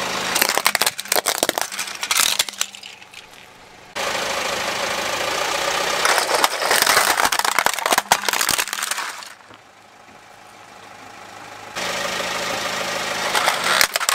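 Car tyre rolling over plastic toy trucks and other plastic objects, cracking and crunching them in several separate bursts, with the car's engine idling steadily between the bursts.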